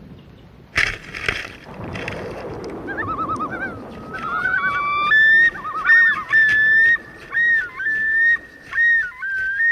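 A sudden knock or rustle, then a loud series of whistle-like notes: warbling trills first, then held notes at one pitch broken by short dips and pauses.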